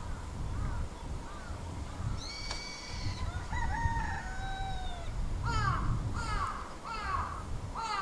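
Birds calling at dawn: a held call a little after two seconds in, some gliding calls around the middle, then four short calls in quick succession, about half a second apart, near the end. A low rumble runs underneath.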